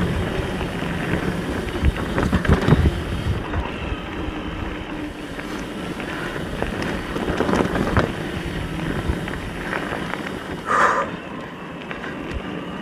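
Mountain bike descending a rough dirt trail: tyres running over dirt and the bike rattling and knocking over bumps, with wind rushing over the action camera's microphone.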